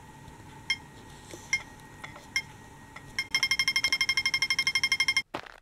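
Toy pedestrian traffic light beeping: a slow beep about once a second, then, a little past halfway, a fast run of about eleven beeps a second, the crossing signal for 'walk' on green. It breaks off suddenly just before the end.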